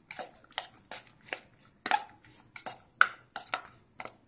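A spoon mixing sliced onion, tomato and chillies in a bowl: about ten irregular clicks and scrapes of the spoon against the bowl, the loudest about three seconds in.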